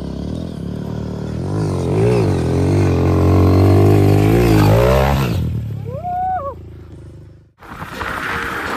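Dirt bike engine revving as the bike approaches, its pitch rising and falling with the throttle, loudest about halfway through and then fading. A short high tone rises and falls shortly after, and the sound cuts off abruptly near the end.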